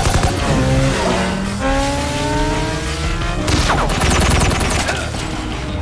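Action-film sound mix: gunshots right at the start, then an engine revving up in a slow rising climb of pitch, with a loud noisy rush about three and a half seconds in, all over background music.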